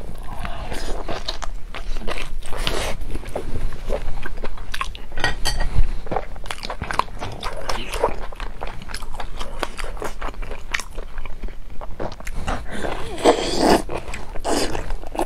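Close-miked eating sounds: crunchy bites into fried, battered food and steady chewing, with a louder stretch near the end.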